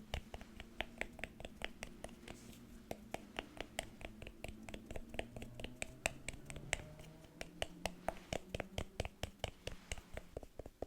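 Rapid tapping on face-care product packaging, about four or five sharp taps a second, some ringing briefly.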